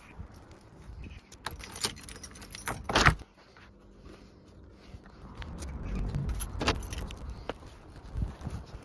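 Clinks, rattles and knocks of handling as a framed solar panel is picked up and carried. The loudest sharp knock comes about three seconds in, followed by quieter rubbing and a few light clicks.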